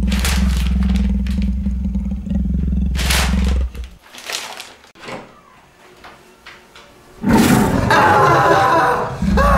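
Deep, steady tiger growl sound effect, cutting off about three and a half seconds in, leaving faint newspaper rustling. About seven seconds in a man yells loudly for around two seconds, and the low growl starts again near the end.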